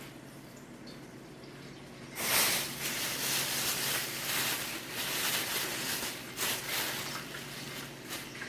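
Hot frying grease sizzling and crackling. It starts suddenly about two seconds in, as something is put into the oil to test whether it is hot enough, and dies down near the end.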